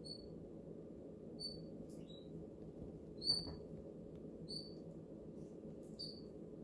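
Short, high chirps from a small animal, about one a second, over a steady low hum. A single soft knock about three seconds in is the loudest sound.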